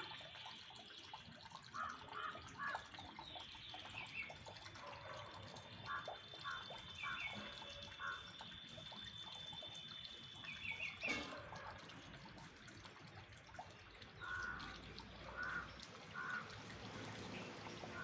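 Small birds calling in the trees: short chirps, often in quick groups of two or three. A thin, steady high note runs through the middle and cuts off about eleven seconds in.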